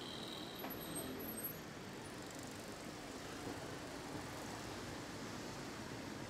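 Steady background hum of road traffic, with a faint high-pitched sound in the first second or so.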